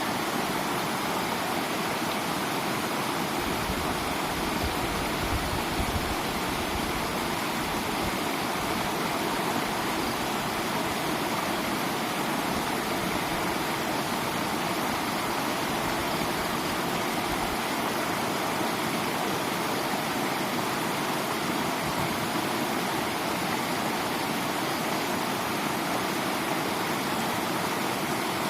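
Steady rushing of flowing floodwater, with a few brief low rumbles around four to eight seconds in.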